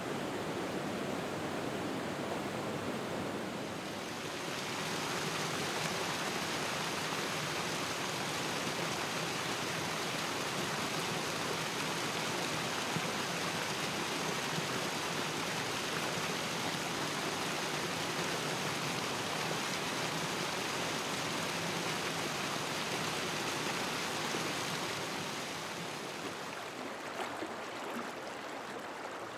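Small waterfall splashing into a shallow pool: a steady rush of falling water that turns louder and hissier about four seconds in, then softer again near the end.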